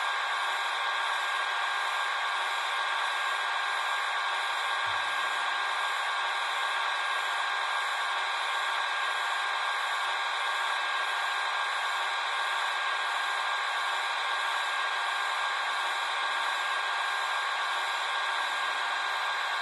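Small electric motor and gearing of a Roco H0-scale EDK 750 model railway crane whirring steadily with a thin, constant whine as it moves its jib.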